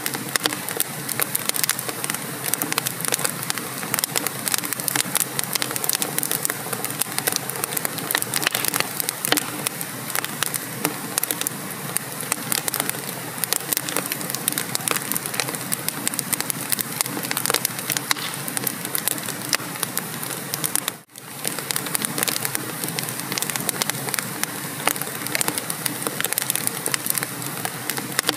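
Wood fire burning in a fireplace, crackling and popping densely and without pause; the sound drops out for an instant about two-thirds of the way through.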